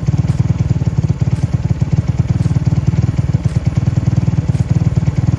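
150cc moped engine running steadily with a fast, even low beat, its newly fitted stator charging the battery.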